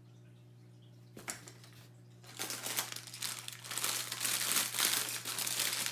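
Clear plastic packaging bag crinkling as it is handled and opened. There is a short rustle about a second in, and then steady, louder crinkling from about two seconds in.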